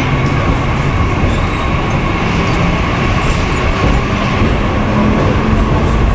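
Mumbai suburban local train running, a loud steady noise with a thin steady whine over it.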